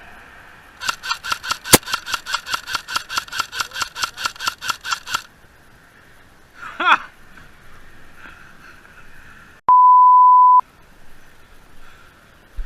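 A steady pure beep tone lasting about a second near the end, with all other sound cut out around it, the way a bleep is edited in. Before it comes a quick run of about twenty sharp regular clicks, about five a second, with one loud crack among them, and then a short pitched glide that falls and rises.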